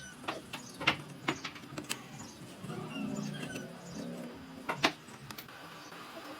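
Scattered sharp knocks and taps, about half a dozen, irregularly spaced with two close together near the end, over faint short chirps from birds.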